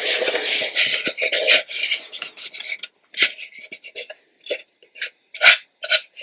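Hands rubbing and smoothing glued fabric down over the edges and corners of a covered box: continuous scratchy rubbing for about three seconds, then several short separate strokes.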